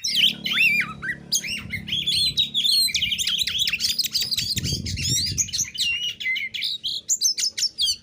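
An Oriental magpie-robin (kacer) sings a fast, unbroken run of sharp whistled and chattering notes in its aggressive, challenging 'narung' style, the kind used to provoke rival males. A low hum sits underneath for the first few seconds and again around the middle.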